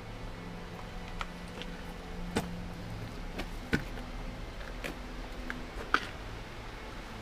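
Sharp snaps and crackles of dry twigs and debris under footsteps, about one a second, over a low ambient music drone of long held notes.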